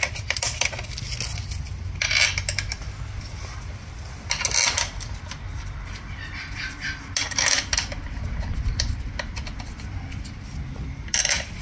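Steel E-Torx bolts clinking against the aluminium CVT transmission case as they are set into their holes and started by hand. The clinks come in short clusters every two to three seconds over a steady low hum.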